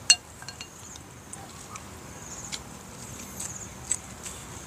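Eating sounds: a sharp click just after the start, then scattered light clicks and taps of chewing and a spoon working at grilled fish, over a steady high-pitched insect trill.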